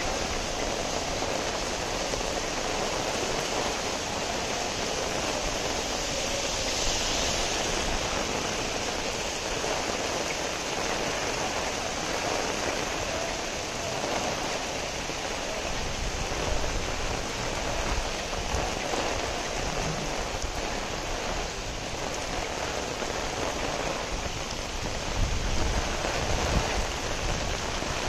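Steady rain falling on a wet street and pavement, an even hiss throughout, with some low rumbling near the end.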